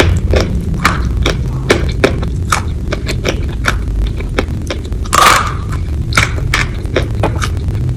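Close-miked chewing: a string of short crunchy and wet mouth clicks, a couple each second, with a longer, louder one about five seconds in, over a steady low rumble.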